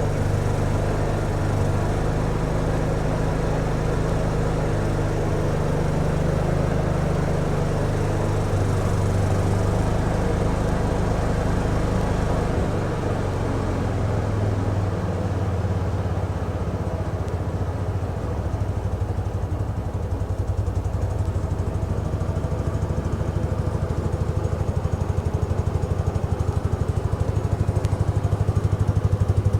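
1975 Case 224 garden tractor engine running steadily while it drives its snow thrower, its tone shifting about twelve seconds in as the load changes.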